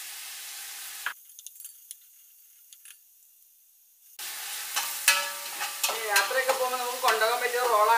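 Sliced onions sizzling in hot oil in an aluminium pot, stirred with a spatula that clicks and scrapes against the pot. The sizzle drops almost away about a second in, then comes back louder about four seconds in, along with the stirring.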